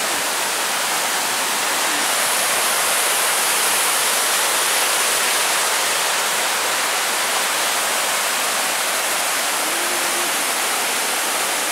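A mountain creek rushing steadily over rocks and small cascades, a continuous even hiss of running water.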